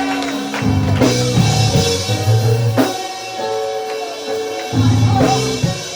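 Live church band playing behind the preacher: held chords and bass notes with a few sharp drum hits.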